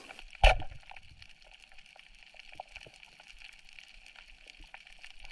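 Underwater ambience: faint scattered clicks and crackle over a steady hiss, with one sharp thump about half a second in.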